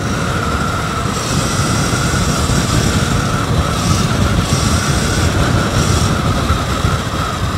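Wind buffeting the microphone while riding an electric dirt bike at speed, with a steady high whine from its electric motor.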